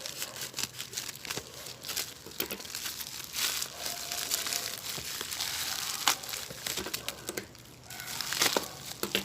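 Parcel packaging being crinkled and torn open by hand: continuous rustling with sharp crackles and clicks, the loudest about six seconds in and near the end.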